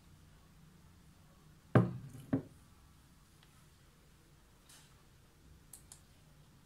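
A mug set down on a wooden desk: two knocks about half a second apart, the first the louder. A couple of faint computer mouse clicks follow near the end.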